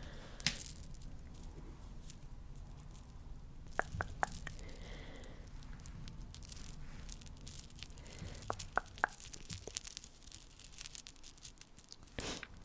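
Close-miked ASMR sticky sounds: faint crackling with scattered sharp sticky clicks and pops, a few clustered near the middle and end.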